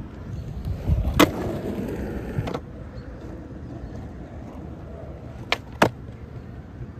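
Skateboard slapped down onto asphalt, its wheels rolling over rough pavement for a second or so, then two sharp clacks close together near the end as the board pops against a concrete curb.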